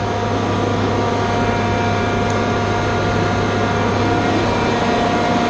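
Steady loud drone of running machinery: a constant low hum with steady whining tones over it.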